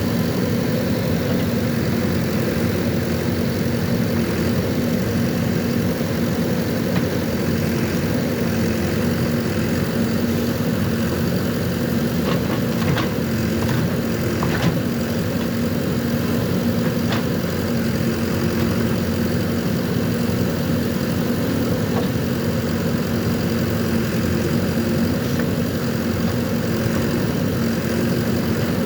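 JCB 3DX backhoe loader's diesel engine running steadily, with a few sharp clicks or knocks around the middle.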